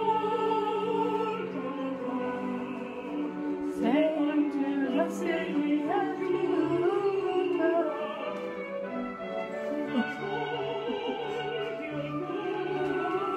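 Opera music: a singer holding long notes with vibrato over orchestral accompaniment.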